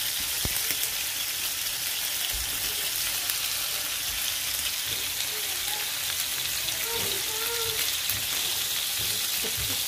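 Hot oil sizzling steadily as ground-meat kefta patties fry in a pan.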